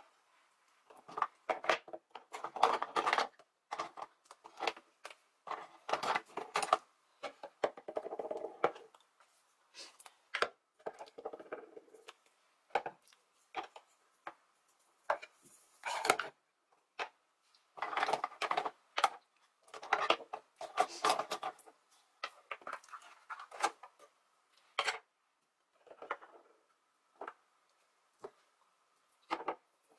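Plastic and glass makeup containers being rummaged through, picked up and set down in a wooden desk organizer: irregular clacks, knocks and rattles, with short stretches of rummaging.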